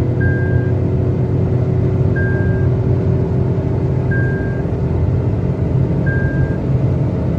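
Tata Altroz's 1.2-litre three-cylinder petrol engine and road noise making a steady drone at high speed. A warning chime beeps about every two seconds, four times.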